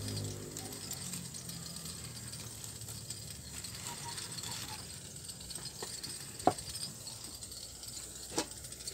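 Firewood burning in a clay wood-fired stove: a faint steady hiss with scattered small crackles, and two sharper pops, one about six and a half seconds in and one near the end.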